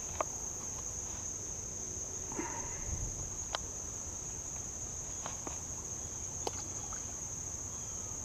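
A chorus of crickets or similar insects keeps up a steady high-pitched buzz, with a few light clicks and a short rustle of handling scattered through.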